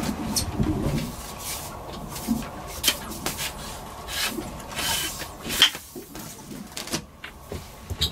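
Irregular knocks and short clatters of fishing gear being handled aboard a small boat while a cuttlefish is played and the landing net is taken up.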